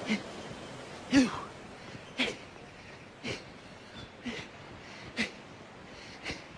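A person making short, breathy vocal sounds, about one a second and each lasting a fraction of a second.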